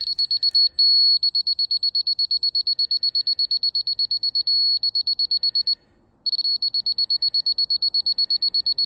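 Electronic alarm beeper sounding a rapid string of high-pitched beeps, about eight a second, all on one pitch. It holds one steady tone briefly about a second in and stops for half a second a little before the 6-second mark, then resumes.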